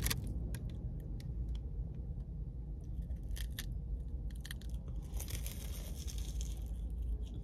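Crunching and chewing as a crisp-shelled fried caramel cheesecake bite is bitten into, a few seconds in, then chewed with mouth noises.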